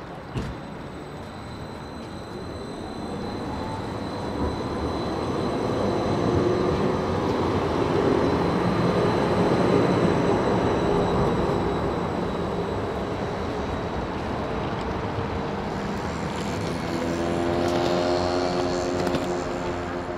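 Electric low-floor tram pulling away from the stop and passing close by: wheels rumbling on the rails with a rising whine of the traction motors as it gathers speed, loudest as it goes past about halfway through. Near the end a steady hum of several pitches comes in.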